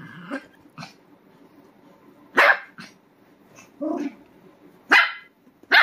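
Small curly-coated dog barking at a teasing hand: three loud, sharp barks at about two and a half seconds, five seconds and near the end, with softer yips and a low grumble between.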